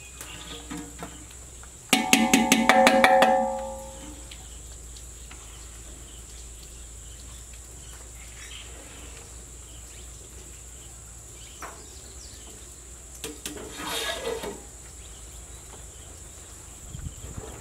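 Metal ladle knocking and scraping against a large metal cooking pot of boiling rice: a quick run of about eight clanks that ring on briefly about two seconds in, and a shorter clatter near the end.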